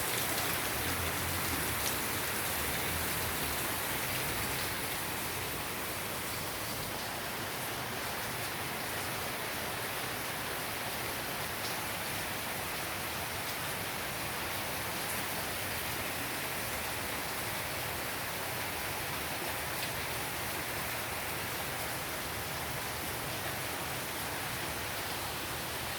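Heavy rain falling steadily, a dense even hiss of a downpour, slightly louder in the first few seconds.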